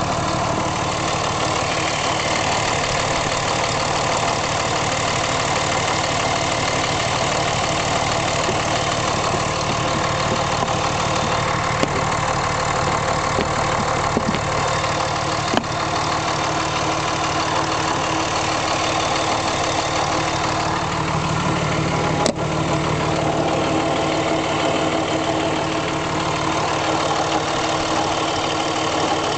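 2005 Dodge Ram's 5.9-litre Cummins turbo-diesel idling steadily, with a few sharp clicks in the middle. The owner is unsure whether the noises from this engine are normal.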